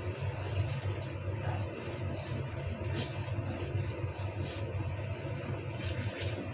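Wire balloon whisk scraping round a stainless steel bowl in repeated strokes as it works a stiff, hard-to-mix cookie batter, over a steady low hum.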